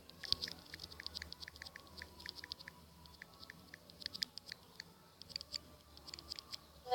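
Typing on a phone's on-screen keyboard: rapid, irregular light clicks, several a second, with short pauses between runs.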